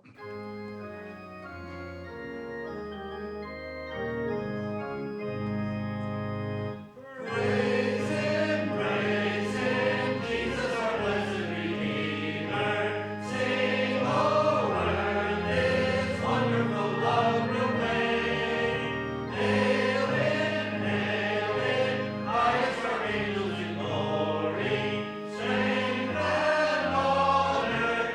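A church congregation singing a hymn to organ accompaniment. The organ plays held chords alone for about seven seconds before the voices come in.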